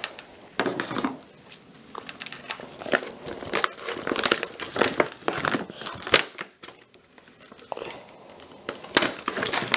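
Glossy paper gift bag crinkling and rustling in irregular crackles as it is handled and cut apart.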